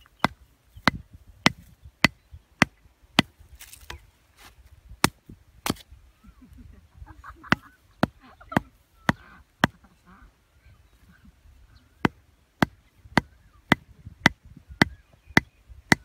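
Hatchet head knocking a wooden stake into the ground: a steady run of sharp knocks about two a second, with a pause of a few seconds in the middle.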